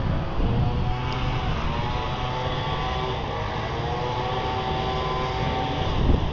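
A steady engine drone whose pitch drifts slowly, over a low rumble on the microphone that swells near the end.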